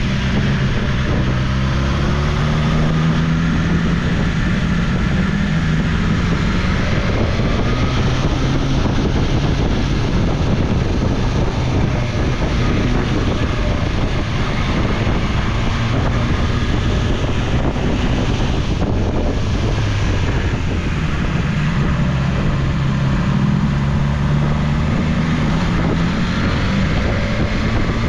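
BMW S1000XR's inline-four engine running while riding, its note rising and falling with the throttle, under steady wind noise buffeting the microphone.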